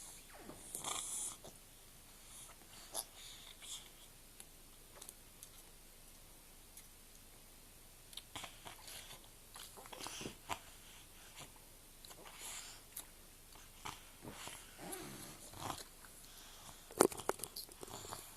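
A sleeping young boy stirring, with scattered soft clicks, rustles and snuffling breaths, and one sharper click near the end.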